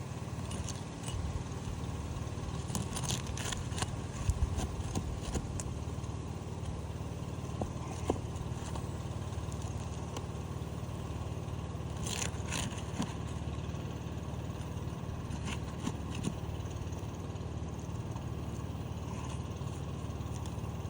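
Scattered clicks and scrapes of brittle asphalt shingles being worked loose on a roof, with a busier cluster a few seconds in and another past the middle, over a steady low rumble.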